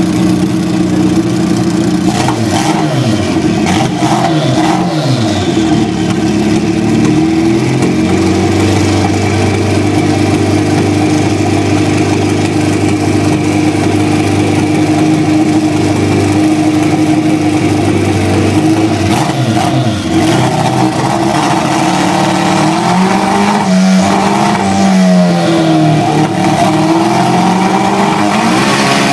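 Turbocharged Suzuki Hayabusa inline-four drag bike engine running on a dyno, held at a steady speed, with the revs rising and falling near the start and again near the end. The owner says it is running on only three cylinders because of an electrical problem.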